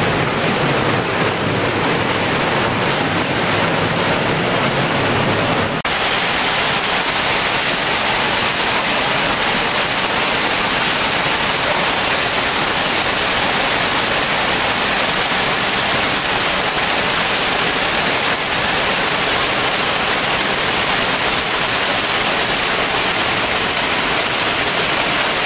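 Waterfall pouring into a rock pool, a loud steady rush of water close to the microphone. About six seconds in the sound changes abruptly to a more even hiss.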